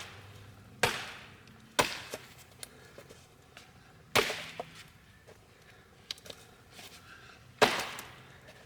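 Firewood being chopped: four heavy strikes into wood at uneven intervals, with small knocks of wood between them.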